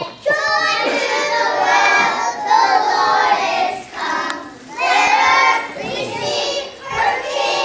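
A group of young children singing together in phrases, with short breaks between them.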